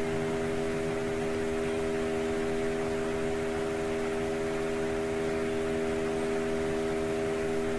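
Steady hum made of a few held low tones over an even hiss: the recording setup's background noise.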